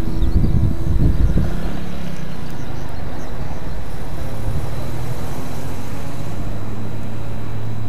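Road traffic noise with a motor scooter passing, heavy low rumbling in the first second or so, then a steady low hum from about halfway.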